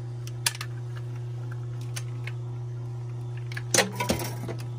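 Steady low electrical hum from energized HVAC control transformers, with a few sharp clicks and a short rattle of a clamp meter being handled, the loudest just before the end.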